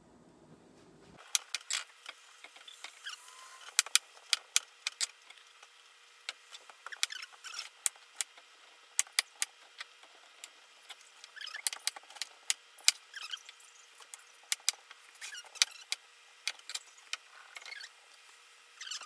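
Pot of vinegar, water, salt and sugar brine at a boil on the stove, with irregular pops and crackles from bursting bubbles.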